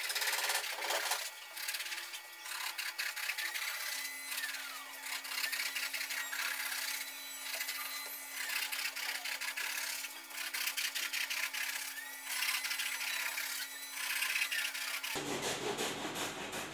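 Repeated rubbing and scraping strokes across a slab of upholstery foam as a marker is drawn along it and hands sweep over its surface, with a few short squeaks.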